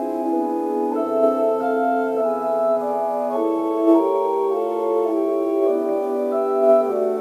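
Two-manual electronic organ playing a slow psalm setting in several voices, held chords moving from note to note. The pedal bass comes through only faintly in the recording.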